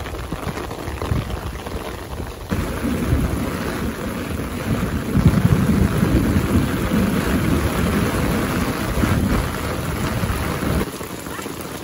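Heavy rain pouring down, with a deep rumble underneath that swells about two and a half seconds in and fades near the end.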